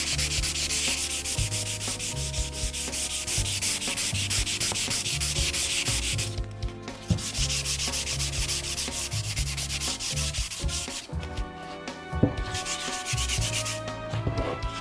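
Wooden board being hand-sanded with 240-grit sandpaper: quick back-and-forth rubbing strokes along the grain, stopping briefly a few times. This is prep sanding to take off fine fuzz and splinters before oiling.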